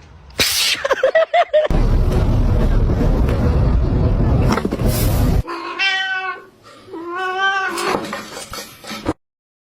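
A cat yowling twice, each call long with a wavering pitch, in the second half. Before that comes a loud, low rumbling noise lasting a few seconds.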